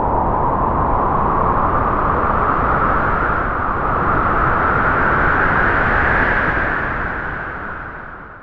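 Halloween sound effect: a long rushing, rumbling whoosh of noise whose pitch slowly rises, then fades out near the end.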